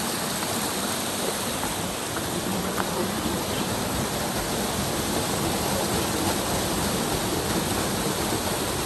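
Steady rush of river water running over rocks and small cascades.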